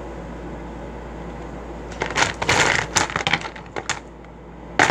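Pencils rattling and clattering as someone rummages through them for one: a burst of clicks and rustling about two seconds in, then another short clatter near the end.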